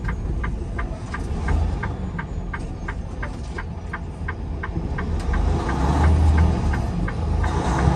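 Semi-truck cab: the turn signal clicks steadily about three times a second over the diesel engine's low rumble. The clicking fades about five seconds in as the engine grows louder.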